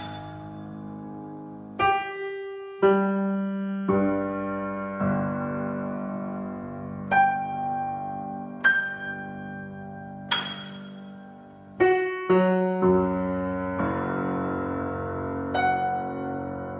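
A c.1982 Steinway Model L grand piano played slowly: about a dozen single notes and chords, each struck and left to ring and fade before the next, with a quick cluster of strikes a little past the middle.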